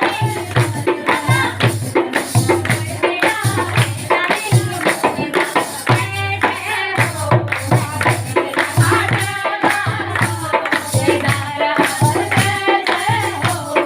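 Music of a Kumaoni devotional song: a steady drum beat with jingling hand percussion under a melodic line.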